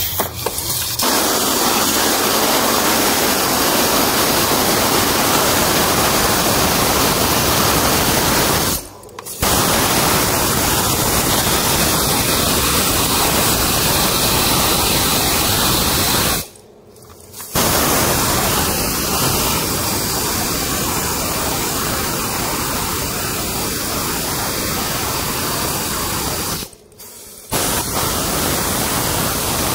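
Compressed-air blow gun blasting a loud, steady hiss over the engine top, clearing dust before the spark plugs are pulled. The blast cuts off briefly three times and starts again.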